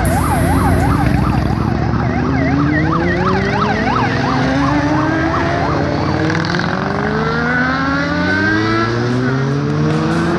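Several motorcycles riding past and accelerating away, their engines rising in pitch one after another. Over the first half a siren yelps rapidly up and down.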